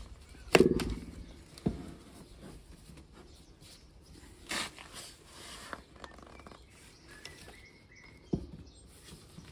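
Black plastic soil pipe fittings being handled and pushed together: a loud hollow knock with a short ring about half a second in, then lighter knocks and clicks, and a brief scraping rush of about a second near the middle.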